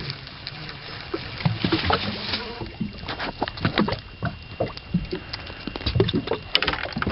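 Water lapping and slapping against the hull of a small fishing boat, with irregular knocks and thumps.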